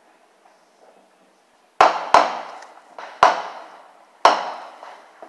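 Aerial fireworks exploding overhead: two sharp bangs in quick succession about two seconds in, then two more about a second apart, each echoing away.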